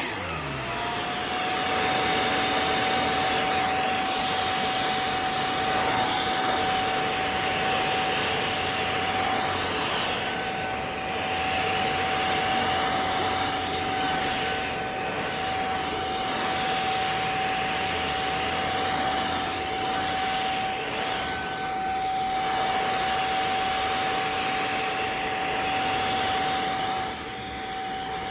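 A JPHYLL 500 W corded mattress vacuum is switched on, its motor whine rising to full speed within about a second. It then runs steadily at high suction with a constant whine and heavy rushing air. The sound dips slightly near the end.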